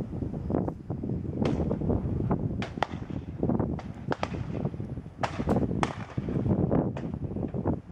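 Distant shotgun shots from hunters around the field, a dozen or so sharp reports at uneven intervals, some close together. Under them is a low, shifting rumble of wind on the microphone.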